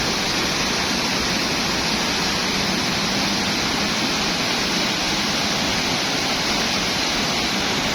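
Waterfall: water rushing down in a steady, unbroken wash of noise.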